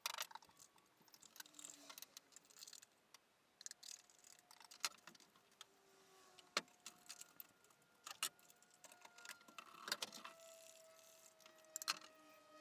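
Quiet hand work: scattered small clicks and taps, with a faint steady tone drifting slightly lower in the second half.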